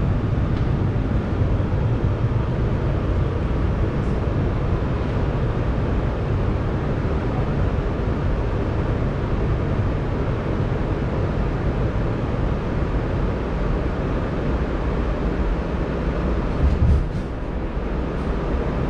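Steady low rumble of an R211A subway car heard from inside as it rolls slowly along the station platform. A brief clatter comes near the end, and then the noise drops a little as the train comes to a stop.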